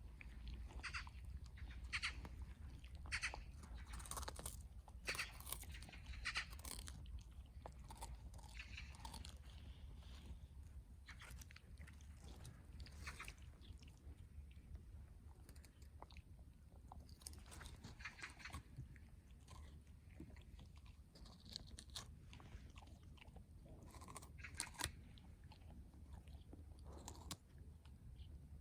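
A dog pulling at and chewing grass: quiet, irregular crunching bites, in clusters of quick strokes with short pauses between.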